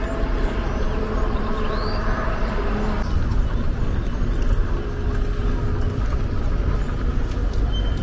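Steady rumble of highway traffic, with a bird chirping briefly about two seconds in.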